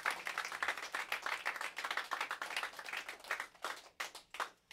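Small audience applauding, the clapping thinning out to a few scattered claps near the end.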